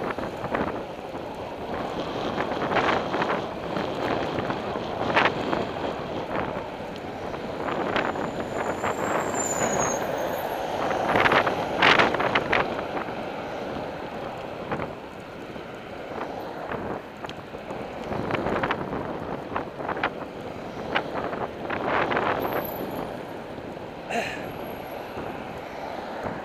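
Wind rushing over a bicycle-mounted camera's microphone while riding, mixed with road noise from traffic in the lane alongside. Short irregular surges and knocks run through it.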